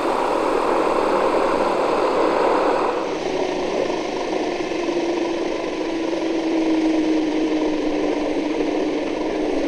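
Electric scale model Aérospatiale SA-315B Lama helicopter running on the ground, its rotors turning while its Benedini sound module plays a turbine whine. A steady mechanical whine with a held hum; the hiss on top drops away about three seconds in.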